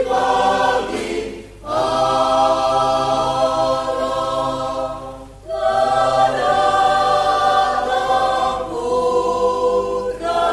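Mixed adult church choir of women and men singing a hymn in long, held chords, with two short breaks between phrases.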